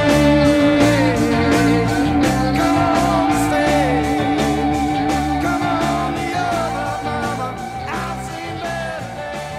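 Music with a steady beat and long held notes, fading out over the last few seconds.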